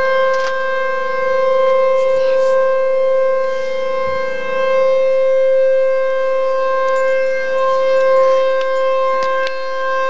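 Power plant warning siren sounding one steady, held tone with several overtones, loud and unwavering.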